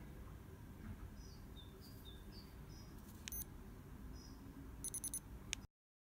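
Faint high electronic pips from the Philips Avent SCH740 ear thermometer: a single pip about three seconds in and a quick run of pips near the end, with a few soft high chirps earlier. The sound then cuts off abruptly.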